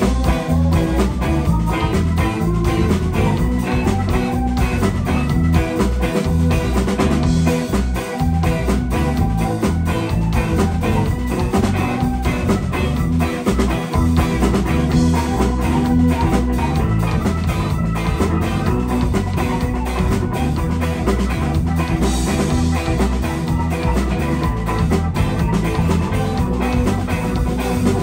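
Live rock band playing an instrumental passage, with guitar over a steady drum-kit beat.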